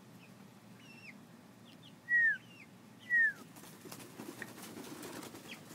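Young hens peeping: two loud, downward-sliding cheeps about a second apart, with fainter chirps before and between them.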